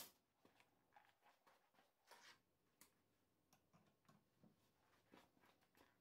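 Near silence, with faint, irregular small clicks and ticks.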